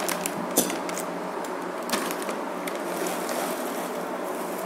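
A few sharp snips and crinkles as scissors cut open a plastic snack packet in the first two seconds, then a steady low hiss and hum.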